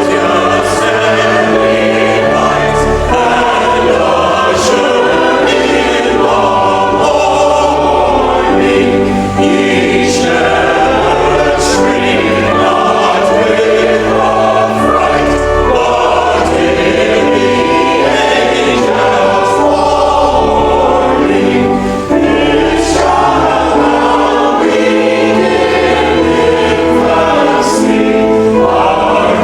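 Church choir singing in harmony, several voice parts at once, with the singers' 's' sounds cutting through every second or two.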